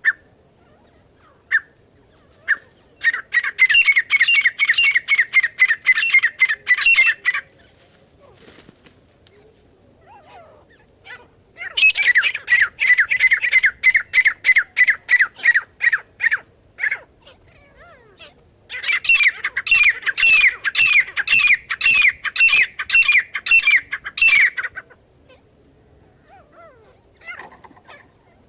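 Grey francolin calling: three long bouts of rapidly repeated notes, each bout lasting four to six seconds, with short pauses and a few single notes between them.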